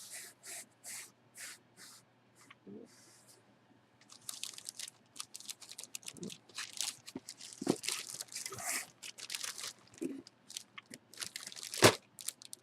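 Sealed mystery box being opened by hand: a run of short scraping strokes, then packaging crinkling and tearing. A single sharp pop near the end as the seal gives.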